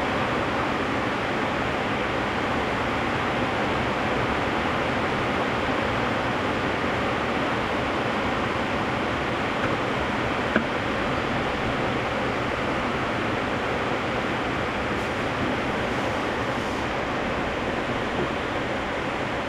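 Steady rain, an even hiss that does not change, with one small click about halfway through.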